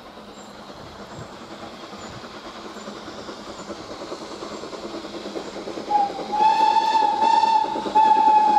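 Steam locomotive approaching, its running noise growing steadily louder. About six seconds in it sounds its whistle, a short pip and then longer blasts with brief breaks, still blowing at the end.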